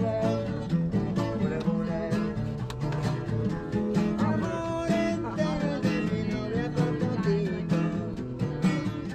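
Background music led by a strummed acoustic guitar, with a steady beat.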